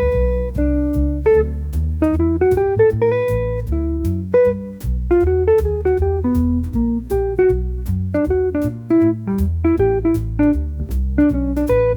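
Upbeat jazz background music: plucked guitar melody over a walking bass line with a steady beat.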